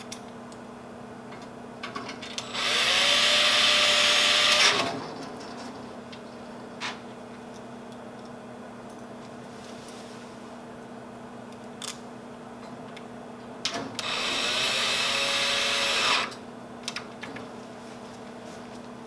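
Cordless drill-driver with a Torx T30 bit driving flat-head screws through sidewall brackets into a steel enclosure frame: two even runs of about two seconds each, the motor's pitch rising briefly as each one starts and then holding, with a few small clicks of handling between them.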